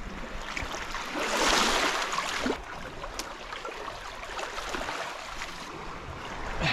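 Small waves washing over sand at the water's edge, one wash swelling and fading about a second in. A single sharp click a little after three seconds.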